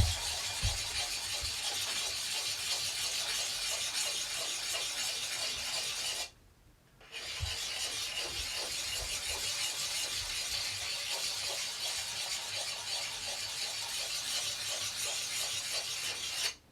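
Hand-held abrasive sharpener rasping back and forth along the steel edge of a vintage Belknap double-bit axe, grinding out nicks in the edge. The stroking runs on steadily, with one short pause about six seconds in.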